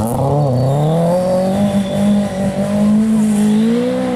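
Volvo rally car's engine pulling hard on a gravel stage. Its note dips briefly near the start, then climbs and holds high as the car accelerates away, with gravel spraying from the tyres.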